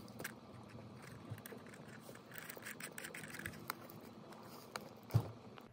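Faint small clicks and light scratchy rubbing as a control stick is screwed by hand into its threaded post on a DJI Mini 2 remote controller, with one louder knock near the end.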